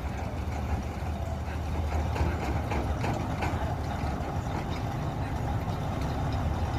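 A heavy engine runs steadily at low speed with a deep, even rumble.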